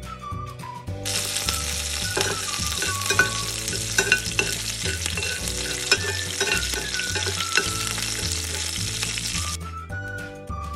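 Food frying in hot oil, a dense sizzle with many sharp pops, starting abruptly about a second in and cutting off abruptly near the end. Background music with a steady bass beat plays underneath.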